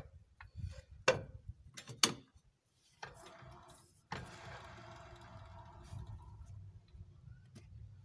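Two sharp knocks about a second apart, then a steady low hum.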